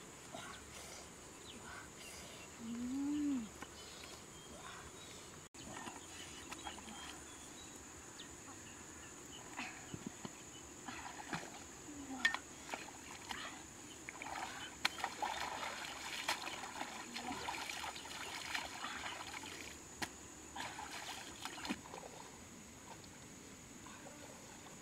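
Water splashing and sloshing irregularly as pieces of fish are washed by hand in a woven basket in shallow river water, busiest from about ten seconds in. About three seconds in, a short call rises and falls in pitch, the loudest sound in the clip.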